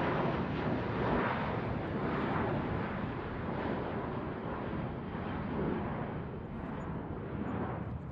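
Airplane engine noise, a steady rushing sound with no distinct tones that grows gradually fainter toward the end, as the aircraft passes and moves away.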